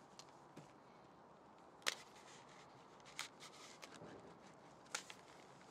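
Faint crinkling of foil-faced MemTech gas over tape 150 as it is smoothed by hand and pressed down with a seam roller, with three sharp clicks about two, three and five seconds in.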